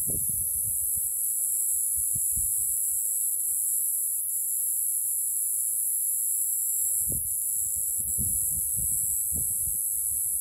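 Steady high-pitched insect chorus, with low buffeting on the microphone at the start and again from about seven to nine seconds in.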